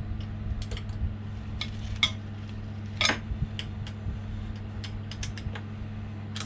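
A spanner clicking and knocking against the change gears and their fixings on a Myford Super 7 lathe as the gear train is set up and tightened, with louder knocks about two and three seconds in, over a steady low hum.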